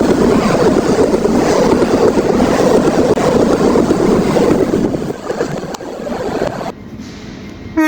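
Train passing close at speed: a loud, steady rushing rumble with no horn, which cuts off abruptly near the end, leaving a quieter rumble.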